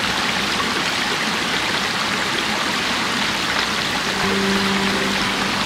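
Mountain stream pouring over a low rock ledge in a thin sheet and running between boulders: a steady rush of water.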